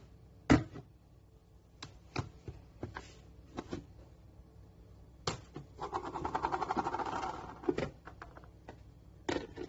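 Plastic microwave rice cooker pot being handled: a sharp knock about half a second in, scattered clicks and taps, and a fast rattling run of clicks lasting about two seconds past the middle.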